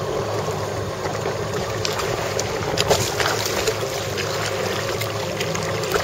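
Jet ski engine idling with a steady low hum, with water slapping and splashing in short bursts against the hull.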